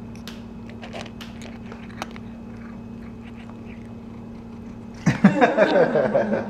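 A cat crunching dry kibble: scattered, irregular crisp crunches over a steady low hum. About five seconds in, a much louder voice-like sound takes over.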